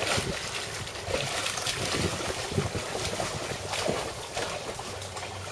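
Hooked bass thrashing at the surface of a pond: a burst of splashing that starts suddenly and goes on in repeated splashes for about four seconds, then eases off.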